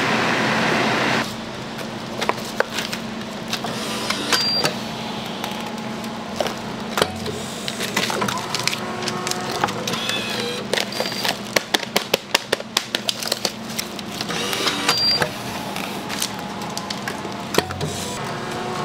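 Cooking sounds at a hotteok griddle: sharp clicks and taps of metal utensils, with a quick run of taps about halfway through, over a steady low hum. A loud hiss fills the first second.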